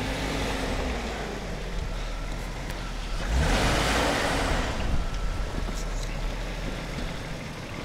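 BMW X5 E53's three-litre inline-six petrol engine running steadily with a low drone. About three and a half seconds in, a rush of hiss swells up for over a second and fades.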